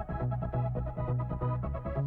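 Electronic dance music with a steady beat and a held bass line, no vocals.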